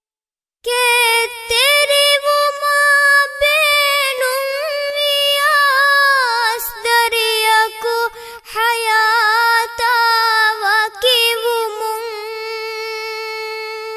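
A young girl's solo voice singing a slow, ornamented Dhivehi melody, unaccompanied. It begins about half a second in and ends on a long held note that fades away.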